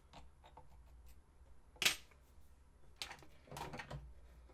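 Light metal clicks and clinks of a hex key and small parts being worked on an aluminum lathe headstock's belt housing, with one sharp click about two seconds in and a short clatter about three seconds in.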